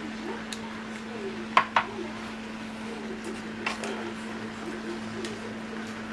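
A spoon knocking and scraping against a nonstick frying pan while sauce is spread over raw shrimp: two quick taps about a second and a half in, then single taps a couple of seconds apart. A steady low hum runs underneath.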